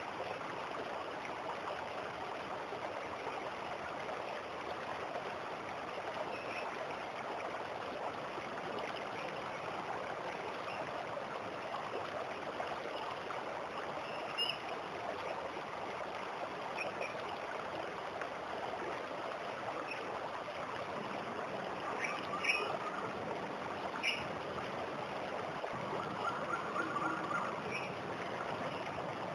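Steady rush of falling water from a waterfall. Short, high bird chirps break through now and then, most often in the last third.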